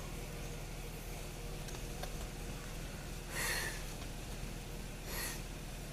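Two short, airy breaths close to the microphone, about three and a half and five seconds in, over a steady low hum.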